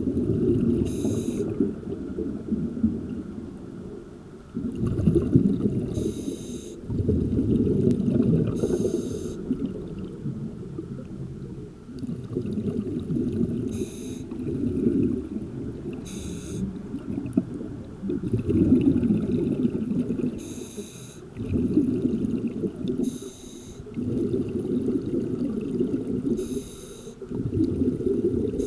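Scuba diver breathing through a regulator: about eight short hissing inhalations, each followed by a longer low bubbling exhalation.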